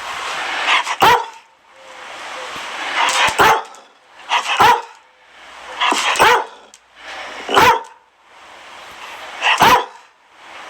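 A Dalmatian barking: about seven single sharp barks, one to two seconds apart, one of them a quick double bark. A rushing noise swells before each bark.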